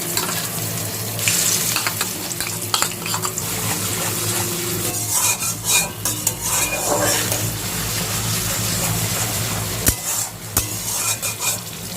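Onion paste sizzling in hot oil in a kadai, stirred with a spatula that scrapes and clicks against the pan.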